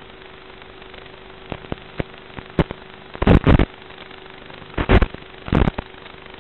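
Static from an FPV drone's analog video link: a steady hiss with a faint hum, broken from about a second and a half in by sharp crackles and pops. The loudest pop clusters come about three seconds in and again near five seconds.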